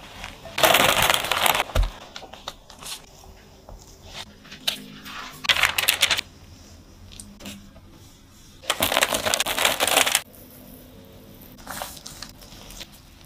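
Kitchen handling sounds from making a cream-filled sponge cake roll: three loud bursts of crackly scraping and rustling, with scattered clicks between and a shorter burst near the end.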